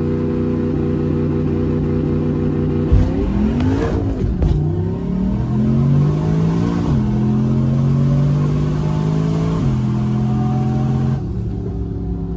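Turbocharged LS V8 in a Malibu wagon, heard from inside the cabin, idling and then pulling away hard. The engine note climbs and drops twice as the automatic shifts up, then falls off near the end as the throttle is lifted.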